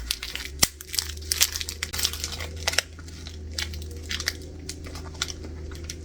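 A beef snack stick package being torn open and crinkled: dense crackling for about three seconds, then only occasional crinkles.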